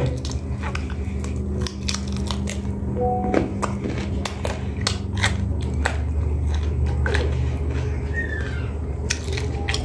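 Close chewing of grilled chicken, with irregular sharp crunches and mouth clicks as bone-end gristle is bitten, over a steady low hum.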